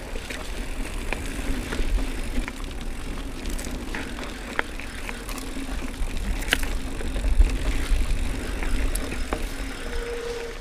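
Mountain bike rolling fast along a dirt singletrack, heard from a camera on the bike: a steady tyre hum over gusty wind rumble on the microphone, with scattered sharp clicks and rattles from the bike over the rough ground.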